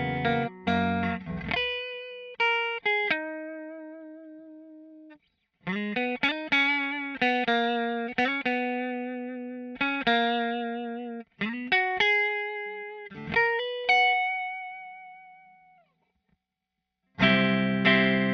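Sterling JP70D seven-string electric guitar played through a Line 6 POD HD500 multi-effects unit. It opens with a few chords, moves to a melodic single-note lead line with sustained, vibrato-shaken notes, falls silent briefly near the end, then comes back in with heavy low chords.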